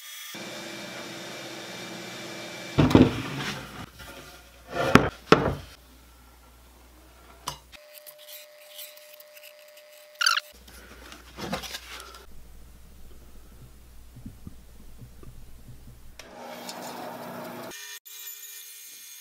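Woodworking shop sounds in quick succession: a drum sander running as a wooden body blank is fed through, several sharp knocks of wood being handled, and a bandsaw running near the end.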